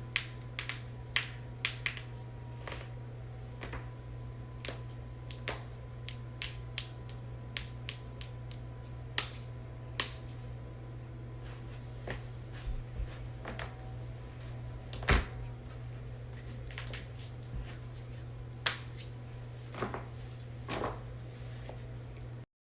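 A long run of sharp joint cracks and pops, dozens of them at irregular intervals over a steady low hum, with one heavier crack about fifteen seconds in. The sound cuts off abruptly near the end.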